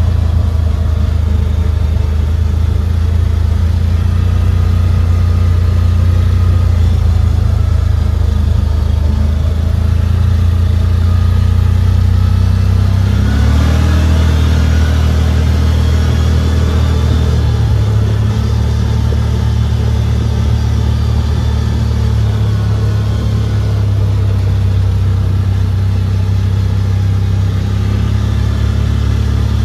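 CFMoto ZForce 950 side-by-side's V-twin engine running steadily while driving, heard from the cab. About halfway through it speeds up and its pitch rises, then settles again a few seconds later.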